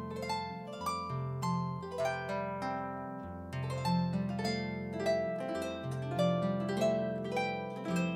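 Solo harp playing: a melody of plucked, ringing notes over low bass notes that change every second or two.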